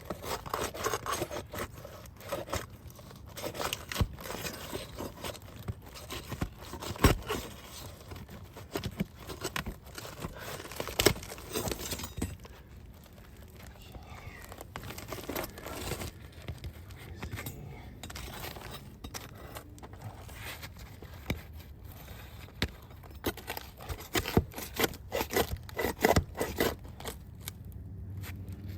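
Roof shingles being pried up and torn by hand: irregular scraping, crackling and ripping with sharp knocks scattered through.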